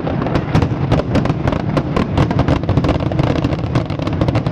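Aerial fireworks going off in a rapid barrage: many bangs and crackles a second over a continuous low rumble.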